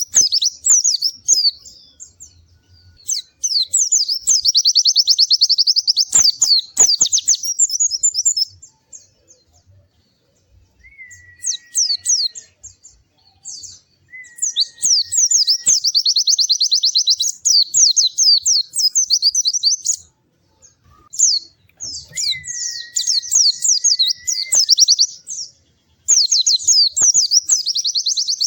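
White-eye (pleci) singing in long, rapid, high-pitched warbling trills several seconds long, broken by short pauses. In the pauses come a few short, lower, steady whistled notes.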